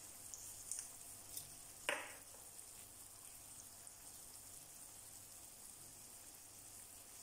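Floured chicken fillet pieces frying gently in butter in a non-stick pan: a faint, steady sizzle with a few tiny crackles. There is one short knock about two seconds in.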